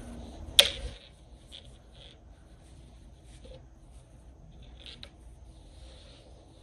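Soft rustling and rubbing of a crocheted yarn cord being drawn through the stitches of a crocheted baby jacket, in faint scattered scrapes. A single sharp click comes about half a second in.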